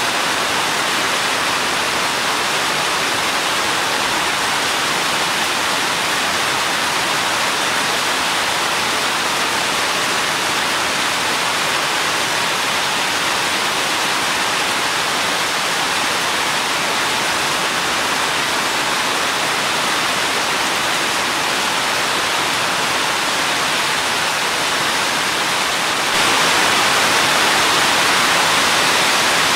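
Steady rain falling as a dense, even hiss, growing slightly louder near the end.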